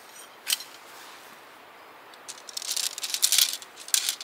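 Tent pole sections clattering and clicking together as they are unfolded, a single click about half a second in, then a rapid, loud rattle over the last two seconds.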